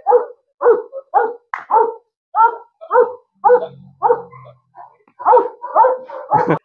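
Large black guard dog straining on its leash and barking aggressively at a man, in a quick run of barks about two a second, with a brief lull a little past the middle.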